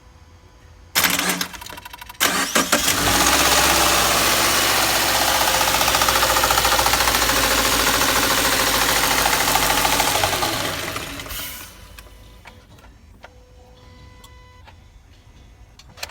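Subaru FB25 2.5-litre flat-four cold-started: brief cranking, then it catches and runs loud with a rapid knocking clatter for several seconds before the noise dies away near the end. The cold-start knock is one the owner cannot explain.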